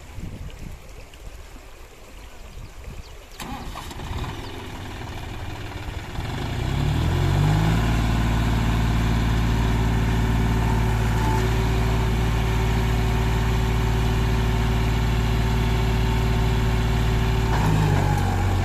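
John Deere 5039D tractor's three-cylinder diesel engine, running low at first, then revving up about six seconds in and holding a steady high note as it strains to pull a loaded sand trolley through river water. The note shifts briefly near the end.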